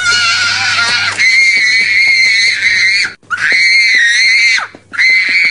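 A young child screaming in a tantrum: a string of long, high-pitched, wavering screams, each over a second long, broken by short pauses for breath.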